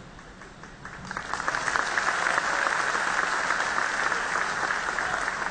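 Audience applauding: many hands clapping together, building up about a second in, then holding steady and easing off near the end.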